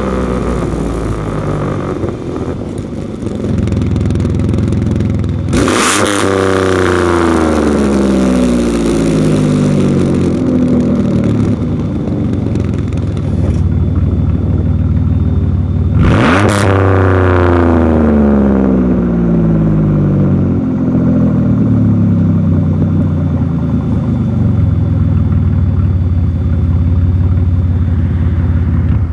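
2009 Dodge Grand Caravan's 3.8-litre V6 heard through a Varex remote-controlled valved muffler with its flap halfway open, idling and revved twice about ten seconds apart. Each blip jumps up sharply and then sinks slowly back to idle over several seconds.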